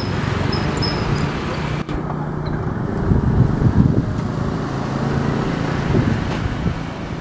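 Street traffic: motor vehicle engines running and passing by, loudest between about three and four seconds in and again around six seconds.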